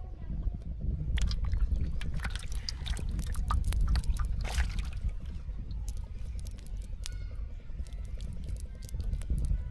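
Wet squelching and scattered sharp clicks as hands pull small fish out of a soaked fishing net lying on mud, denser in the first half, over a steady low rumble.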